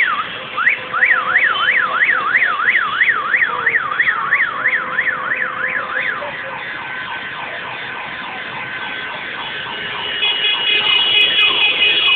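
Electronic siren yelping quickly up and down, about three sweeps a second, loud for the first six seconds, then fainter overlapping sweeps carry on. From about ten seconds in, steady high tones come in over them.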